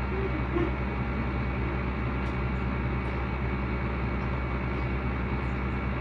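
Amana packaged window air conditioner running steadily: a constant compressor hum with even low tones under the fan's air noise.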